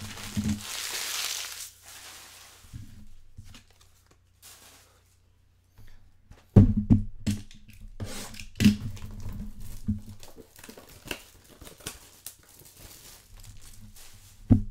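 Plastic wrap being torn and crinkled off a trading-card hobby box, then a string of cardboard knocks, thumps and clicks as the box is opened and handled, the loudest knock about halfway through.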